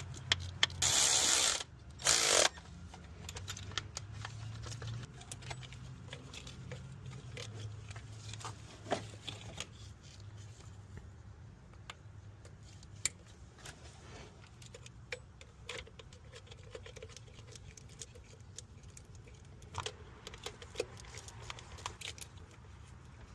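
Hand ratchet wrench clicking in scattered strokes over a steady low hum, with two brief loud rushing noises about one and two seconds in.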